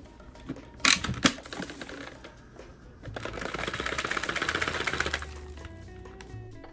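Two sharp plastic clicks as the Dyson V8 Animal's bin release is lifted and the dust bin opens. About two seconds later comes a fast, dense rattling lasting about two seconds, as the emptied dirt and debris fall out.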